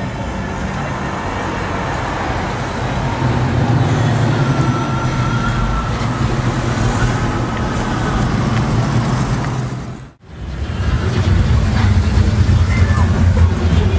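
Street traffic: car engines running in slow-moving traffic, a steady low rumble with road noise above it. The sound drops out sharply for a moment about ten seconds in and comes back louder.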